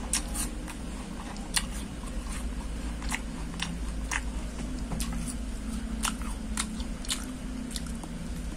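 A person chewing a mouthful of crisp peeled raw apple, with irregular crunches about twice a second.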